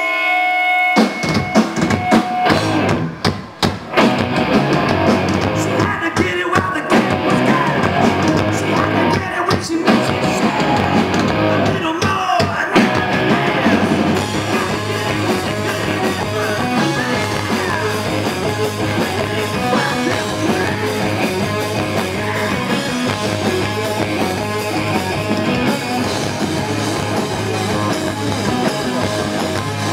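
Live rock band playing loud, with a drum kit and electric guitars. A few sharp hits and a brief drop come in the first few seconds, then the full band plays on steadily.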